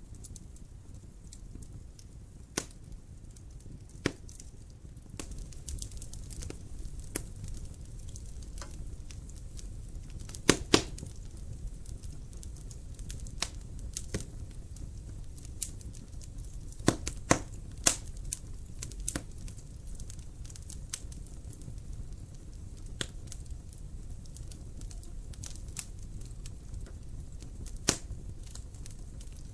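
Wood fire crackling in a fireplace: irregular sharp pops over a steady low rumble of the flames. The loudest are a double pop about ten seconds in and a cluster around seventeen seconds.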